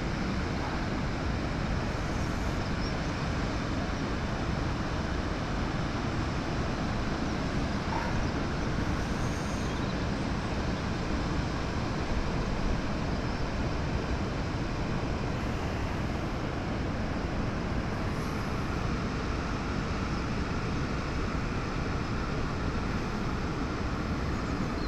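A steady rushing background noise, even in level throughout, with no separate sounds standing out.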